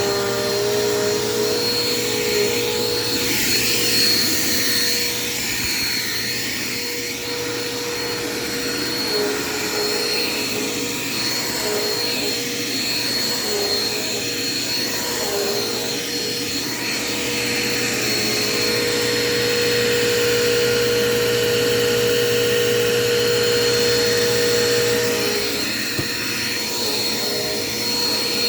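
Dirt Devil Quick Power upright vacuum running on carpet: a steady motor whine whose tone shifts as it is pushed and pulled, with one brief click near the end.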